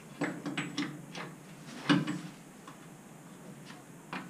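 Scattered light clicks and taps of hand tools and metal hardware being handled, about six in quick succession in the first two seconds, then a few fainter ones further apart.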